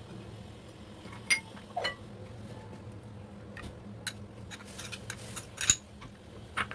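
Kitchen utensils clinking and tapping against a dish, about a dozen separate sharp clinks, some with a short ring, the loudest about a second in and near the end. A faint steady low hum runs underneath.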